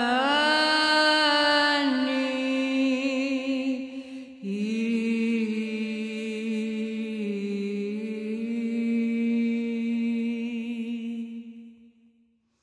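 Byzantine Orthodox ecclesiastical hymn, chanted: long held vocal notes that slide between pitches. A new held note begins about four and a half seconds in, and the chant fades out shortly before the end.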